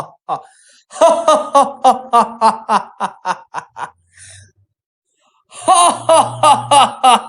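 A man laughing heartily in rapid, loud "ha ha ha" bursts of about four to five a second. The first run fades away after about three seconds, and after a short pause a fresh bout of laughter starts near the end.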